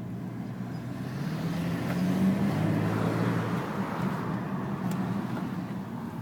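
A car running, its low engine hum growing louder about two seconds in and easing off again.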